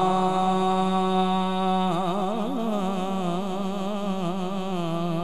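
A man's voice chanting Arabic praise in long, drawn-out held notes, a slow melodic recitation with a wavering ornamental turn about two seconds in.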